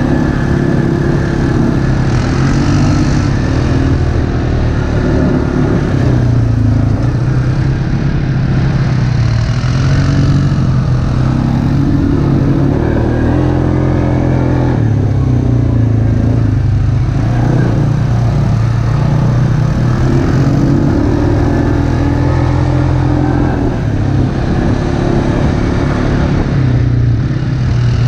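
ATV engine running under way, its pitch rising and falling slightly with the throttle.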